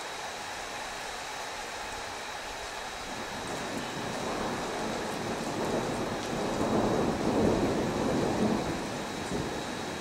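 Rolling thunder over steady rain: a rumble builds from a few seconds in, is loudest about three-quarters of the way through, then fades.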